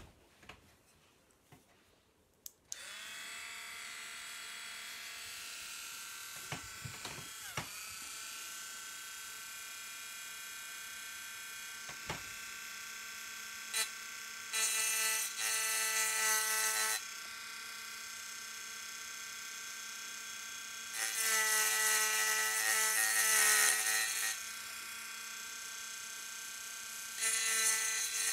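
Dremel Stylo Plus rotary tool switched on about three seconds in, its small motor spinning up to a steady high whine. Three times it turns louder and harsher as the tiny carving bit grinds into glass, the last near the end.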